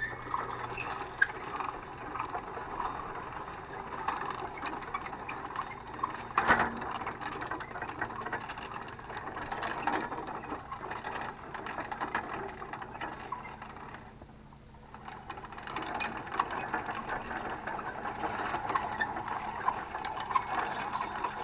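Hand-cranked cable winch on a homemade water-well drill rig, its ratchet pawl rattling and clicking as the crank is worked, with a short lull about two-thirds of the way through.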